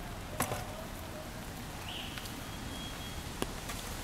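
Rainy city street ambience: a steady wash of noise, with two sharp clicks, one just after the start and one about three seconds in, and a brief high squeak near the middle.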